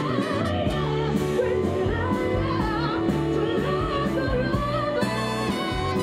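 A live band playing: a woman sings lead into a microphone over electric guitar and bass guitar, with a steady beat.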